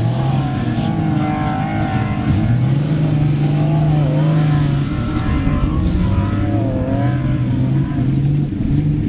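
Toyota Land Cruiser's engine pulling hard under load as it drives up sand dunes, its pitch rising and falling several times with the throttle and load.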